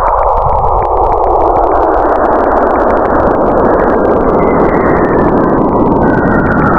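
A loud, steady rushing noise that spreads lower in pitch over the first few seconds, then holds.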